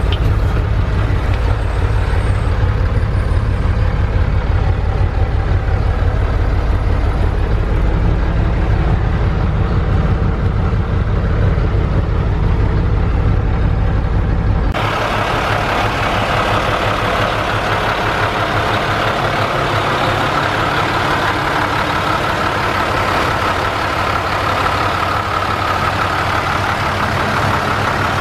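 1982 Mack R-Series truck's diesel engine running, heard from inside the cab as a heavy, steady low rumble. About halfway through the sound changes abruptly to the engine idling heard from outside the truck, with much less low rumble and more hiss.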